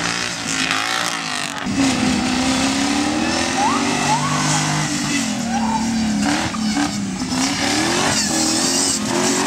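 Off-road competition car's engine revving as it drives the course, its pitch rising and falling again and again with the throttle.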